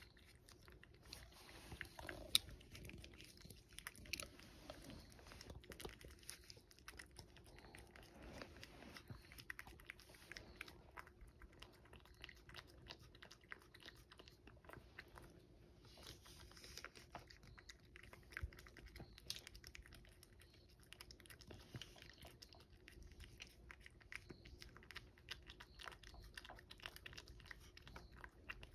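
Cat licking a Churu lickable paste treat from a ceramic dish: a quick, irregular run of faint wet tongue clicks and laps.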